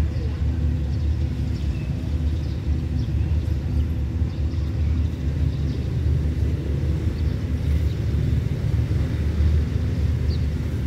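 Steady low rumble of a diesel locomotive engine, with a faint steady hum above it.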